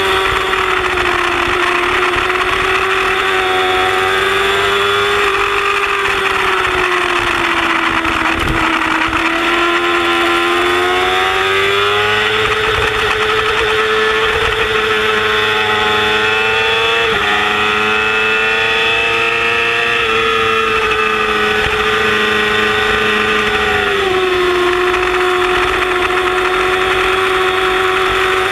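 Yamaha R6's inline-four engine running at high revs under race conditions, with wind noise. The engine pitch dips about a third of the way in, climbs back and holds, then drops again near the end as the rider eases off and gets back on the throttle through corners.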